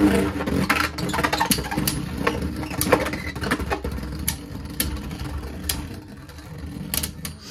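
Two Beyblade Burst spinning tops, Lightning Pandora and a Bellfire, whirring and rattling as they spin against the plastic stadium floor, with frequent sharp clicks as they strike each other and the stadium walls; the whirr fades gradually as they lose spin.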